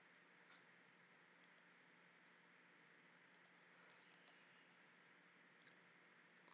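Near silence: faint room tone broken by about half a dozen soft clicks, mostly in quick pairs, from a computer mouse and keyboard in use.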